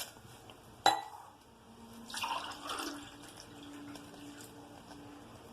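Water poured from a glass into a cooking pot, the pour starting about two seconds in with a faint tone that rises slightly as the vessel fills. A single sharp knock about a second in, before the pour.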